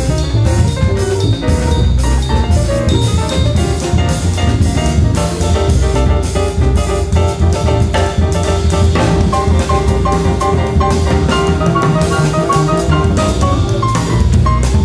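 Live jazz quartet playing a samba-flavoured tune: drum kit keeping a busy, steady beat under walking double bass, with piano and saxophone carrying the melody in sustained notes.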